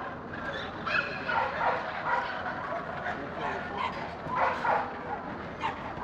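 Dogs barking and yipping in several short bursts over a steady background murmur.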